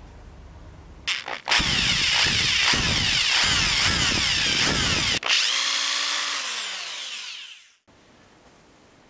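Electric drill boring a hole into a block of karin wood clamped in a vise. A couple of short trigger bursts come about a second in, then about four seconds of steady drilling. After a brief break the motor winds down with falling pitch and cuts off suddenly.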